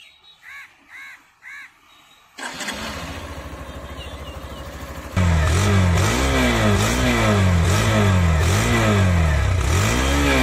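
Hero Xtreme 160R motorcycle's single-cylinder engine starts on the electric starter about two seconds in and settles into a steady idle. From about halfway it is much louder, heard at the exhaust, as the throttle is blipped repeatedly, the pitch rising and falling about once a second.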